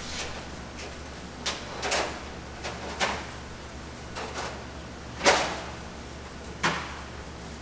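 Food-prep clatter: about ten irregular sharp clacks and knocks, the loudest a little past halfway, over a steady low hum.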